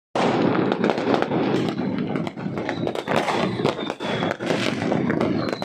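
Fireworks going off in quick succession: a dense, continuous run of pops and crackles. A faint high whistle comes in about halfway through and falls slightly in pitch.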